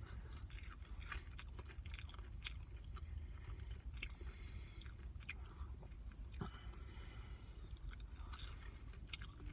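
Close-miked chewing of a sauce-dipped chicken nugget: many short, irregular wet mouth clicks and smacks.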